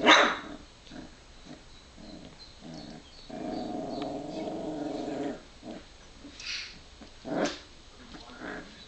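A young puppy barking and yipping. There is a sharp yelp right at the start, which is the loudest sound. A few small yips follow, then a steady, drawn-out growling cry of about two seconds in the middle, and another yelp near the end.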